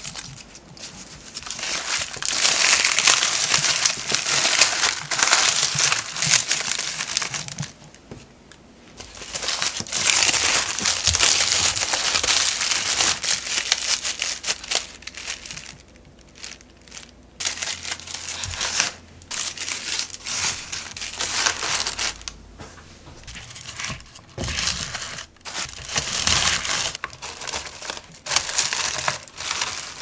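Dry papery onion skins crackling and tearing as they are peeled off by hand, then brown honeycomb kraft wrapping paper crinkling as onions are wrapped in it. The crinkling comes in dense stretches at first and in shorter bursts with brief pauses later.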